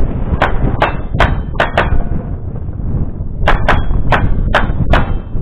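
Gunfire in two quick strings of five shots, with a short pause between them. Some shots are followed by the brief ringing of steel targets being hit.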